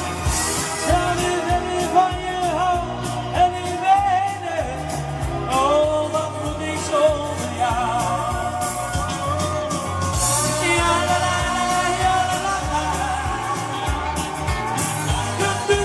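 A male singer performing a pop song live, his voice over musical accompaniment with a steady bass beat.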